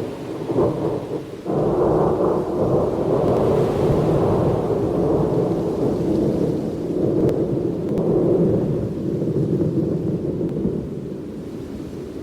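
Thunder: a sharp clap at the start and a second crack about a second and a half in, then a long rolling rumble that slowly fades near the end, over steady rain.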